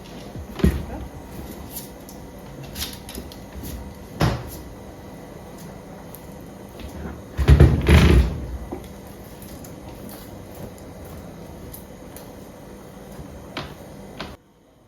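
Household clatter: several separate knocks and clunks, like cupboard doors or objects being handled, with a louder cluster of bangs about halfway through.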